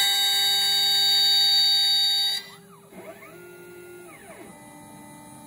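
CNC router with its spindle at 24,000 rpm cutting a board, a loud steady high whine. About two and a half seconds in the whine falls away, leaving softer motor tones that rise and fall in pitch. The loud whine comes back near the end.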